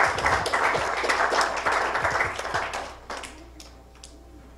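Congregation applauding, a dense patter of many hands clapping that dies away about three seconds in, with a few last scattered claps.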